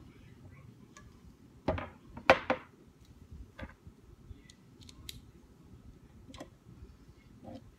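Parts of a recurve bow being fitted together by hand: several sharp clicks and knocks, the loudest about two seconds in, with fainter ticks later.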